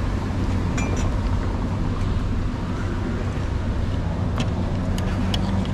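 Steady low hum of street traffic, with a few light clinks of a metal spoon and fork against crockery about a second in and several more near the end.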